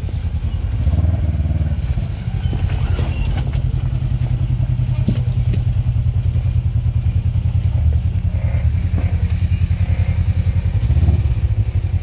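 Polaris RZR side-by-side's engine running low and steady with a fast, even throb as it crawls over rock ledges, with a few light knocks.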